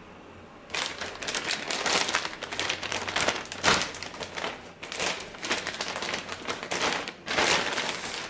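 Clear plastic packing bag crinkling and rustling as it is pulled off a boxed electronic unit. It starts about a second in and carries on as a dense run of quick crackles, with a short lull near the end.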